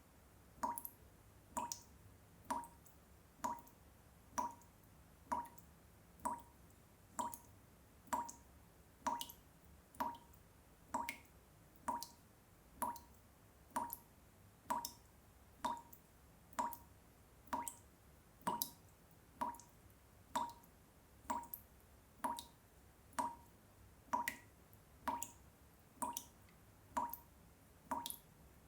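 Water dripping from a washbasin tap, one drop about every second at a very even pace, each landing with a short pitched plink.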